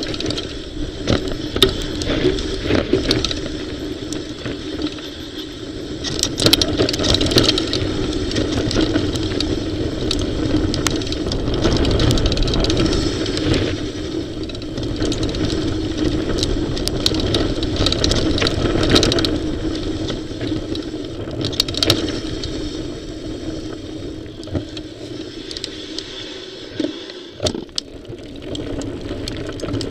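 Mountain bike riding fast over a rough dirt and stone trail, picked up by a camera mounted on the bike: a steady rumble of tyres on the ground with frequent rattles and sharp knocks from the bike over bumps. It eases off somewhat near the end.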